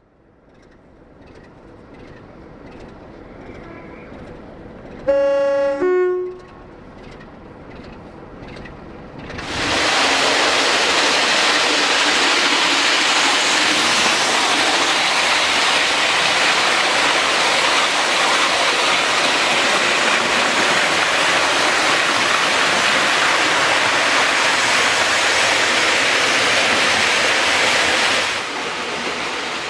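Diesel locomotive horn sounding two tones, high then low, about five seconds in. Then the loud, steady rushing of a passing train from about ten seconds in, dropping away near the end.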